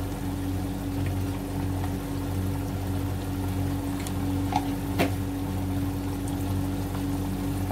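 A steady low hum with a droning tone that does not change, and two light clicks about four and a half and five seconds in.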